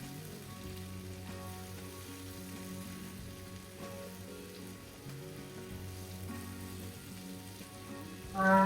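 Soft background music with long held notes that change every second or so, over a faint sizzle of food cooking.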